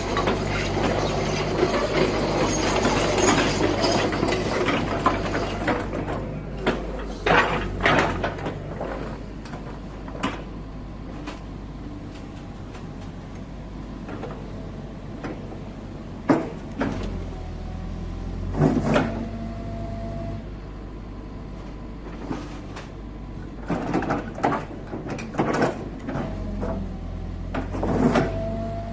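Kobelco SK135SRD hydraulic excavator running: a steady diesel engine hum throughout, with louder working noise for the first several seconds, then scattered clunks and knocks, a few followed by a short high whine.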